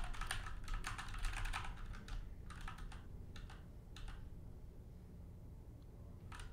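Typing on a computer keyboard: a quick run of keystrokes over the first two seconds, then a few scattered key presses.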